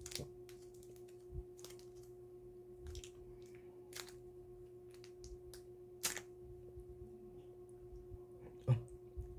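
Faint, scattered clicks and snaps of a bar of milk chocolate being handled and a square broken off, the sharpest snap about six seconds in, over a steady faint hum.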